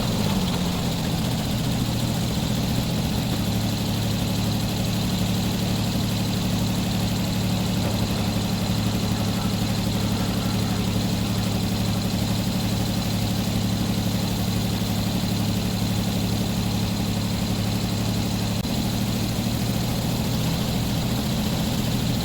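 Sawmill engine running steadily at an even speed, its tone shifting slightly about three-quarters of the way through.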